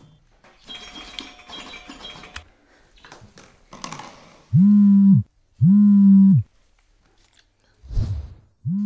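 Smartphone on vibrate buzzing against a wooden floor: two loud, even buzzes of about a second each past the middle, and a third starting near the end, signalling an incoming call. Before them, body and clothing rustles with small clicks, and a dull thump comes shortly before the last buzz.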